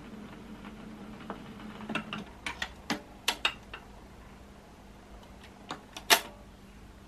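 Garrard automatic record changer cycling at the end of a 78: the stylus runs with a low steady noise in the run-out groove until about two seconds in. Then comes a quick series of mechanical clicks as the tonearm lifts and swings back, and a louder clunk about six seconds in as the arm settles onto its rest.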